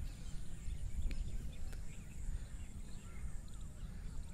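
Wind buffeting the microphone as a steady, uneven rumble, with faint bird chirps over it.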